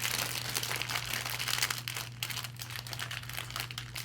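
Packaging crinkling and crackling in rapid, irregular handling as a squishy toy ball is pulled out of it.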